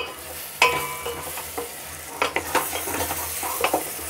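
Peas and tomato masala sizzling in a steel pot while a ladle stirs it, the ladle scraping and clinking against the pot several times with short metallic rings.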